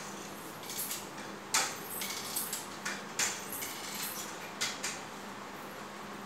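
A metal crutch being walked on a hard tiled floor: about half a dozen irregular taps and clicks as its tip strikes down and its fittings knock, over a steady low hum.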